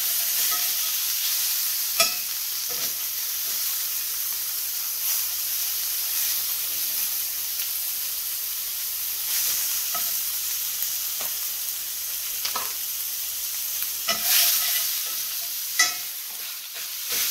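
Rib steak with minced garlic frying in a hot cast-iron skillet, a steady high sizzle. A few sharp clicks and scrapes of a utensil against the pan come at scattered moments as the steak is pressed and moved.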